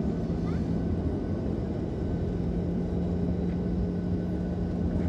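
Jet airliner cabin noise heard from a window seat: a steady engine rumble with a low constant hum, as the aircraft rolls along the ground before takeoff.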